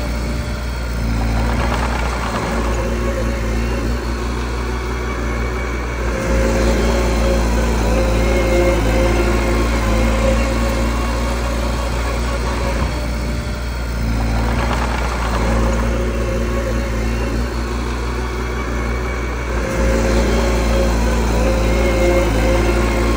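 Mini bulldozer's diesel engine running steadily. It gets a little louder and its note shifts about six seconds in and again near the end, as the load changes.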